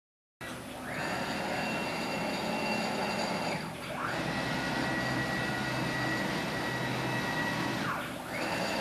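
CNC router's stepper motors whining as they drive the gantry through its rack and pinion drives, along with a steady mechanical hum. The whine dips and climbs back up about three and a half seconds in and again near the end, as the axes slow and speed up again.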